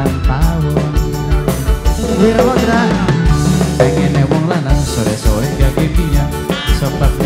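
Live tarling-dangdut band music, loud and continuous: a steady drum and bass beat with a wavering melody line over it.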